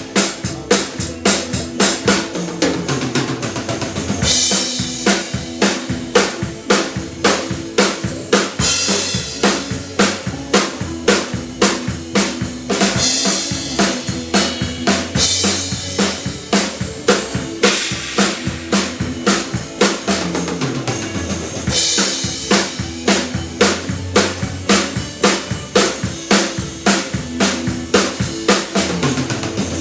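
Acoustic drum kit played in a steady groove, kick and snare driving the beat, with cymbal crashes ringing out every few seconds.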